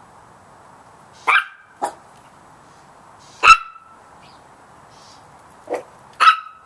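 Chihuahua puppy yapping: five short, high-pitched barks at uneven intervals, the loudest about halfway through.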